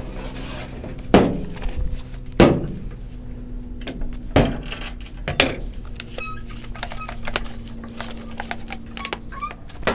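A series of sharp knocks and clunks, four of them loud in the first half plus lighter clicks, over a steady low hum.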